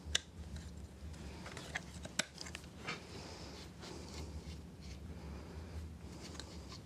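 Light clicks and scraping of a steel plane blade being fitted into a vintage No. 3 hand plane, a few sharp clicks standing out, over a low steady hum.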